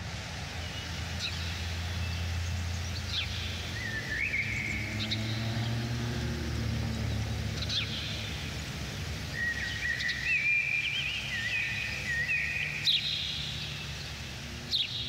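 House sparrow chirping: short scattered chirps, with a run of quick calls about two-thirds of the way through, over a steady low background rumble.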